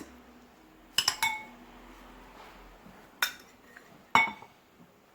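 Kitchen containers and a utensil clinking: four sharp clinks, two close together about a second in, then one near three seconds and one near four, some ringing briefly.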